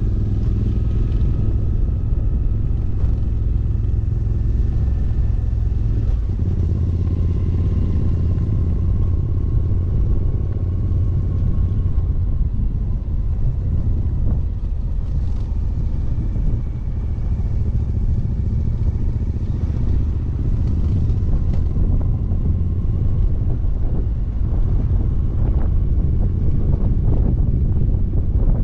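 Motorcycle riding along a gravel dirt track, its engine running steadily at cruising speed with a low, even rumble. The sound shifts slightly about six seconds in and dips briefly shortly before seventeen seconds.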